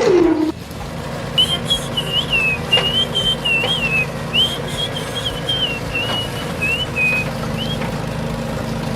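Someone whistling a short, wavering tune of quick notes over a steady low hum, after a brief falling tone at the very start.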